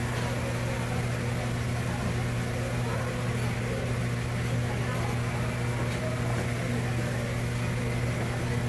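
A steady low machine hum with no change in pitch or level, of the kind made by a fan, pump or compressor motor running continuously.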